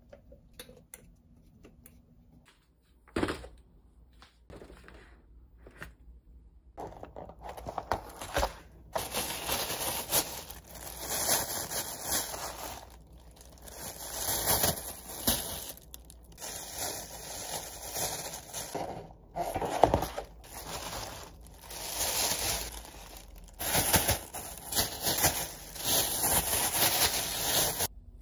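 Thin plastic bags crinkling and rustling in the hands as portions of raw meat are wrapped in them, dense and continuous from about seven seconds in. Before that, a few light clicks and a sharp knock about three seconds in, from a plastic lid being pressed onto a glass food container.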